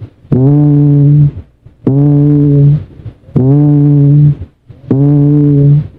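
Auscultated voice with egophony: a sustained, nasal, bleat-like vowel sounded four times at an even pace, each about a second long with a short gap between. It is the kind of chest sound heard over a pleural effusion.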